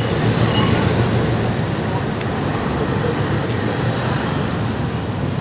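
Steady road traffic noise, a constant low rumble, with two brief faint clicks about two and three and a half seconds in.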